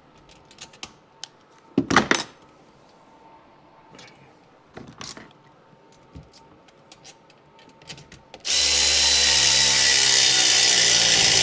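Milwaukee cordless electric ratchet running with a steady high motor whine for about three seconds near the end, driving in a bolt on the engine. Before it, light clicks of hands and tool, with a short loud clatter about two seconds in.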